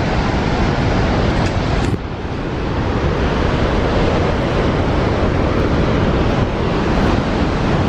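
Steady rush of Niagara's Horseshoe Falls with wind buffeting the microphone. A click and a brief drop in level come about two seconds in, after which the noise builds back up.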